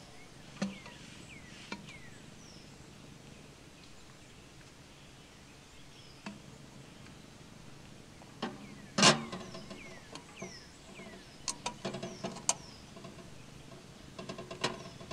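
Stainless steel kettle set down on the steel top of a Winnerwell wood stove with a loud metallic clank and ring about nine seconds in, followed by lighter metal clicks and clinks. Small birds chirp faintly in the background.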